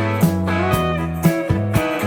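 Background music led by a plucked guitar, over low bass notes, with fresh notes struck about twice a second.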